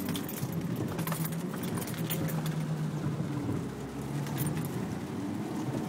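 Jeep Wrangler LJ Rubicon's 4.0-litre straight-six running steadily at low trail speed, heard from inside the cab, with light rattles and clinks from the vehicle.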